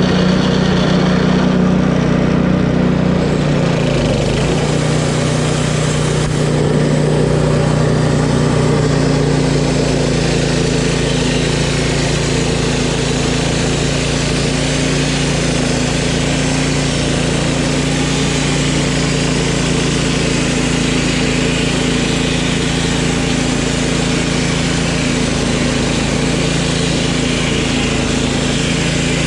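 Gas engine of a Woodmizer LT10 bandsaw mill running steadily as a fresh band blade saws a log into boards. Its pitch drops slightly about four seconds in and then holds.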